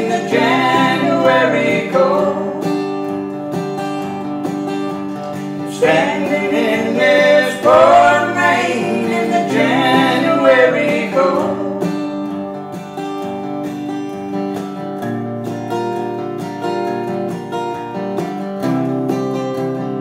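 Acoustic guitar strummed under a man and a woman singing a country ballad in harmony, with one sung line at the start and another in the middle. The singing stops about twelve seconds in, and the guitar plays on alone.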